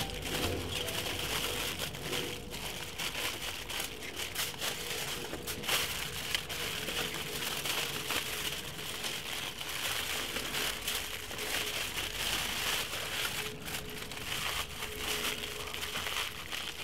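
Aluminium foil being folded, crimped and crumpled by hand as it is wrapped into a tight sealed parcel around a whole fish: a continuous run of irregular crinkling and crackling.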